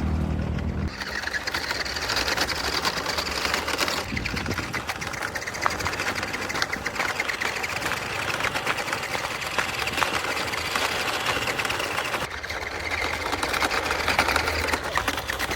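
Small electric drive motor and plastic gearbox of a cheap 1:12-scale toy RC car whirring with a rapid gear chatter as it is driven. The sound shifts in level and pitch a few times, about a second in, around four seconds and near twelve seconds.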